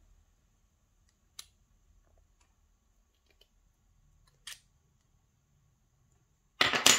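Small metal clicks from the brass parts of a Pollux 7 tubular lock being fitted together by hand, the core and follower going back into the lock body. There are two faint single clicks, then a louder quick run of metallic clicks near the end.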